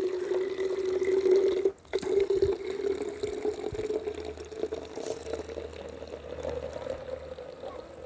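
Water from a garden hose pouring into a plastic foam cannon bottle that already holds car shampoo, filling it; the pitch of the pour slowly rises as the bottle fills. The flow breaks off briefly about two seconds in.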